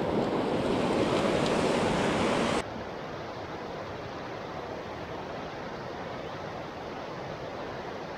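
Steady rushing of a fast, shallow river over rapids. About two and a half seconds in it suddenly becomes quieter and duller.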